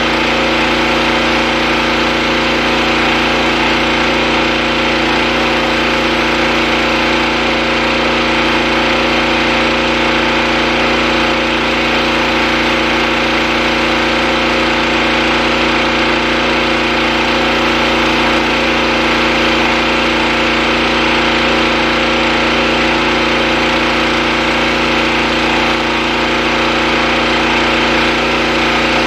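Pressure washer's engine running steadily at one constant speed, with the hiss of water spraying from a rotary surface cleaner working over concrete.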